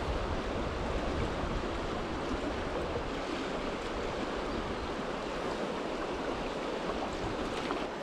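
Steady rushing of a large, fast-flowing river's current running over riffles.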